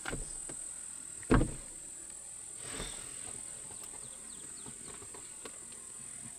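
Steady high-pitched drone of insects in the bush, with a single loud low thump about a second in.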